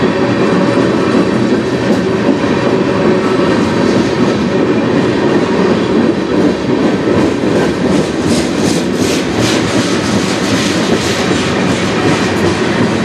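CN freight train of tank cars and open-top hopper cars rolling past: a steady rumble of steel wheels with the clickety-clack of wheels over rail joints. The clacking grows sharper and more rhythmic from about eight seconds in.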